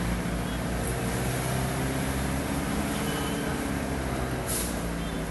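Car driving along a wet, flooded street, heard from inside the car: a steady engine drone with tyre and water noise from the road. A brief hiss about four and a half seconds in.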